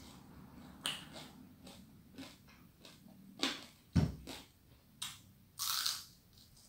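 Close-up eating sounds of crisp deep-fried fish head being chewed: scattered crunches and cracks, a few sharper ones, with a longer noisy burst about five and a half seconds in.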